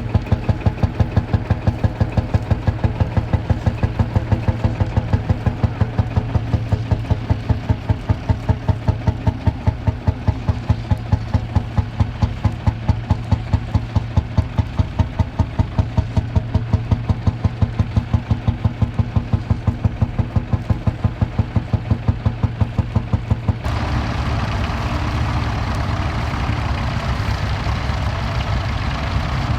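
Tractor engine running with a fast, even thudding beat. About 24 seconds in it cuts abruptly to another, steadier engine sound.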